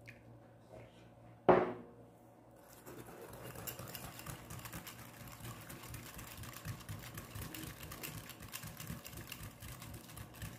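A single sharp knock about one and a half seconds in as the glass mug is set down. From about three seconds in, a metal wire whisk beats yeast, sugar and milk in a glass bowl: a fast, steady rattle of wires clicking against the glass.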